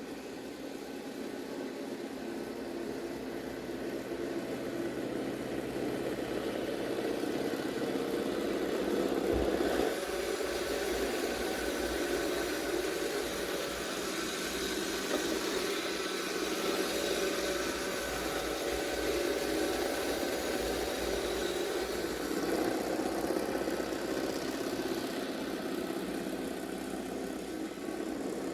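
Robot vacuum running: a steady motor and brush whir with faint steady tones, growing louder over the first few seconds, with one low bump about nine seconds in.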